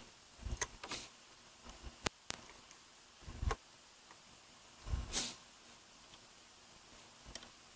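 Hand tools working a bolt on a motorcycle's headlight and windshield bracket: scattered sharp metal clicks, a few dull knocks, and a short rustle about five seconds in.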